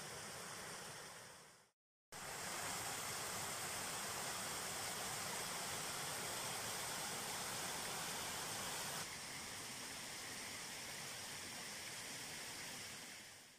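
Water rushing steadily through and over a beaver dam of sticks in a small stream. The sound breaks off briefly near two seconds in, drops a little about nine seconds in, and fades out near the end.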